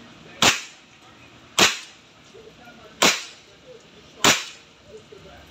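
Hunting Master AR6K .22 PCP air rifle firing four sharp shots about a second apart, with a fifth right at the end. Its revolver magazine is fired straight from the trigger, without cocking first, which the owner says gives a weaker shot than when it is cocked.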